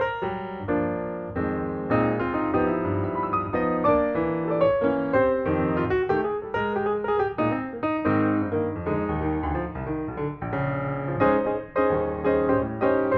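Background music led by piano, playing a melody of clearly struck notes.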